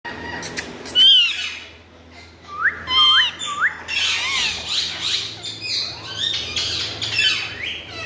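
Indian ringneck parakeets calling: a loud call about a second in, a few quick upward-sliding whistles around three seconds, then a dense run of overlapping chattering calls through the second half.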